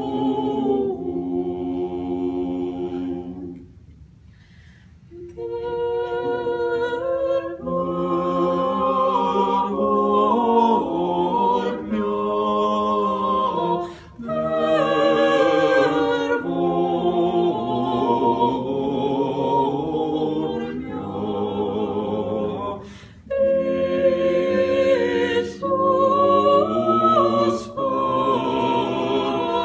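Unaccompanied vocal quartet singing in several parts, holding long chords and moving between them, with a short pause about four seconds in and brief breaks for breath twice later on.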